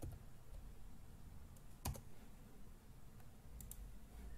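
A few isolated computer keyboard and mouse clicks, the loudest about two seconds in, over faint background hiss.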